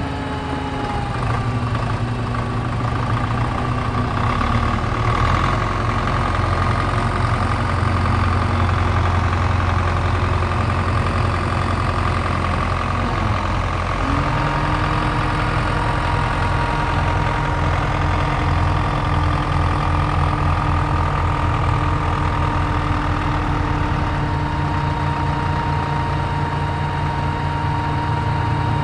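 Heavy vehicle engine running steadily at low speed, settling at a slightly different speed about halfway through.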